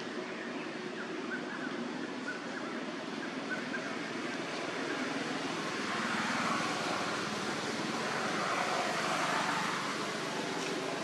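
Steady rushing outdoor background noise that swells twice in the second half, with a few faint short chirps early on.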